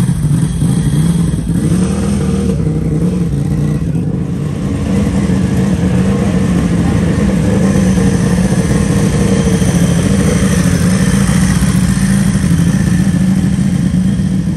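Britten V1000's V-twin racing engine running loud and steady at a lumpy idle, its pitch wavering slightly with small throttle changes.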